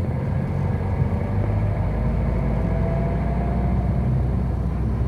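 Cabin sound of a 2022 Subaru WRX's turbocharged 2.4-litre flat-four with a catted J-pipe and MAP cat-back exhaust, cruising with a steady low drone. A faint whine rises slightly in pitch around the middle.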